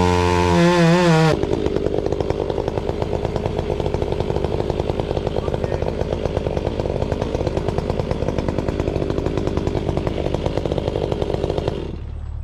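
Chainsaw held at full throttle, then running lower and rougher under load as it cuts into the trunk of a tree being felled for about ten seconds. It drops back to idle near the end.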